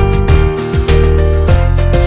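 Background music: an upbeat track with a steady beat and plucked guitar.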